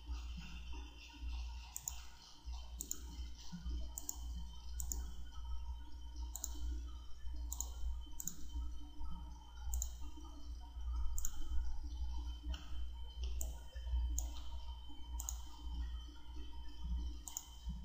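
Computer mouse clicking at an unhurried, fairly even pace, about one click every second, over a low steady hum.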